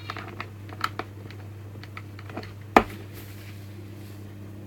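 Light clicks and taps of a Henry vacuum's plastic motor-unit housing being handled while its screws are refitted, with one louder knock near the middle, over a steady low hum.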